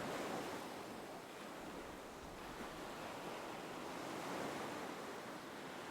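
Soft, steady wash of gentle ocean waves, the surf hiss swelling and easing slightly.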